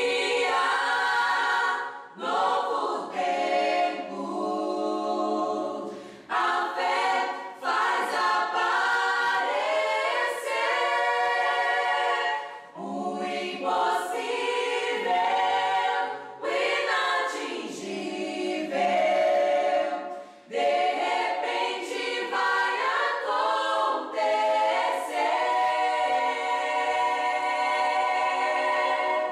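Small mixed vocal group of men and women singing a Portuguese gospel song in harmony, unaccompanied, in phrases broken by brief pauses for breath.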